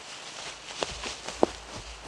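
Footsteps crunching through dry leaf litter on the forest floor, with a few sharp cracks underfoot; the loudest comes about a second and a half in.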